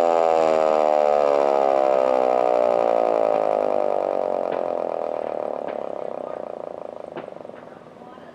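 Two Federal Signal Model 2 electromechanical sirens winding down together, their tones beating against each other as the pitch falls and the sound fades. A few faint sharp ticks sound in the second half.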